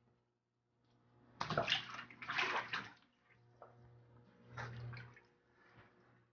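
Water splashing and sloshing as a pet American alligator feeds on an eel: two loud bursts in the first three seconds and a smaller one about five seconds in, over a low steady hum.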